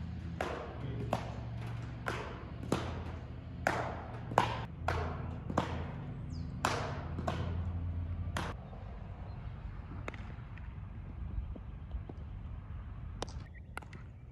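Background music with a steady drum beat and sustained bass notes; the beat stops about eight seconds in, leaving a few faint ticks.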